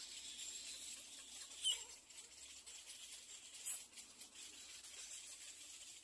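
Little egret chicks giving short, squeaky begging calls of hungry nestlings, twice, about two seconds apart, over a faint steady high hiss.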